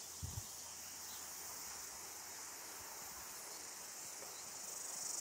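Steady, high-pitched insect chorus from the surrounding bush, with a brief soft low thump just after the start.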